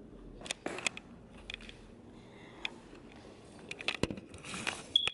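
Quiet handling noise of a handheld camera being carried and set down on a wooden table: scattered clicks and knocks, with a cluster of knocks about four seconds in. A brief high tone sounds near the end.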